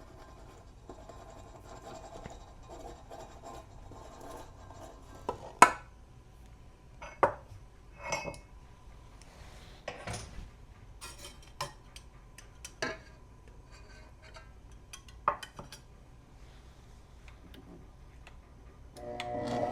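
Kitchen utensils clinking and knocking against a mixing bowl as dry ingredients are mixed and added, in scattered single strikes with one sharp knock about five and a half seconds in. Near the end an electric mixer starts running with a steady hum.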